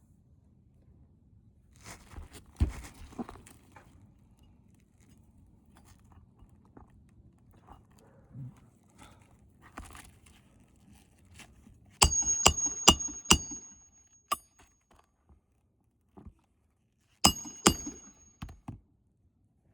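Light handling and rustling, then a quick run of five or six sharp taps with a short high metallic ring. Two or three more of the same taps come near the end.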